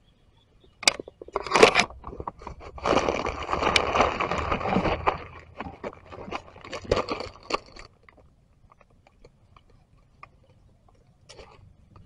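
Dry leaf litter and twigs crunching and rustling as a macaque handles a stick and moves on the forest floor. Two sharp cracks in the first two seconds, a dense rustle for about two seconds, then scattered crackles that die away.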